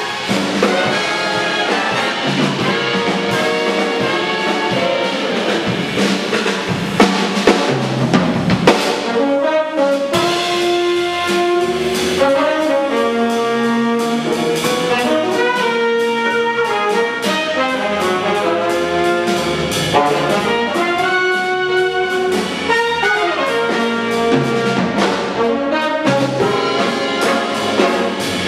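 Jazz big band playing: the saxophone, trumpet and trombone sections in held ensemble chords over the drum kit's cymbals and drums, with sharp loud accents about seven to nine seconds in.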